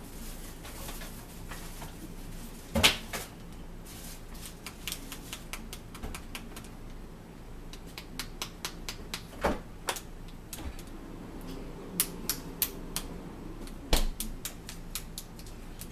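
Small plastic clicks from buttons being pressed on a compact digital camera and its body being handled, scattered irregularly, with a few louder knocks about three, nine and fourteen seconds in.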